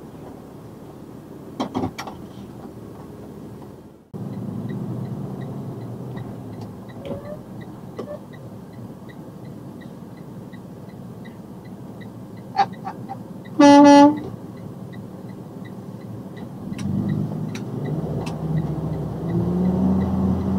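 Box truck's horn sounding one loud blast of about half a second, a little past the middle, over the truck's steady engine and road noise. The engine grows louder near the end.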